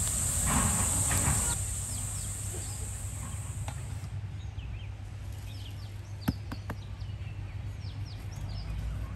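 Small birds chirping in short, quick downward notes over steady outdoor background noise, with a high hiss that fades out in the first few seconds and a single sharp click about six seconds in.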